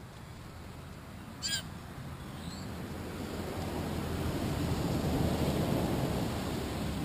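A blue jay gives one short, harsh call about a second and a half in. After it a low rushing noise swells and then eases off.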